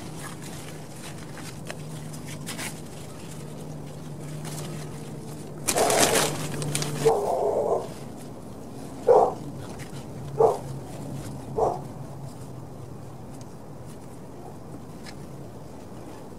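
A dog barking: a louder, longer outburst about six seconds in, then three short single barks a little over a second apart.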